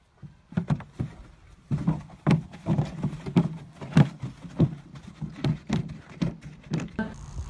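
A horse's hooves thudding on dry dirt as it bucks and kicks about: a run of irregular thuds, roughly two a second, starting a moment in.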